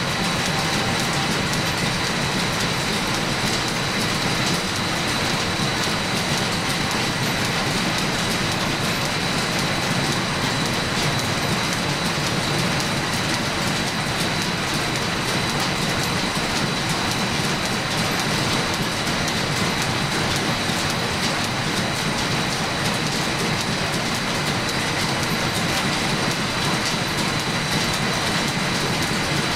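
Line-shaft machine shop running under steam power: overhead shafting, flat belts and a belt-driven lathe turn with a steady clattering rumble and a thin, steady high tone, unchanged throughout.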